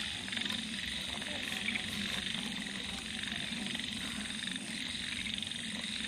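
A dense night chorus of frogs croaking, steady throughout, with low pulsing croaks under a higher continuous rapid trill.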